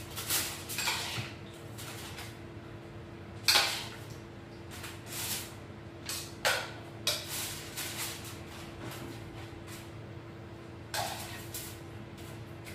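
A spoon scraping a bowl in irregular short strokes as a topping is spooned onto fish in aluminium foil, with the foil rustling; the loudest scrape comes about three and a half seconds in. A steady hum runs underneath.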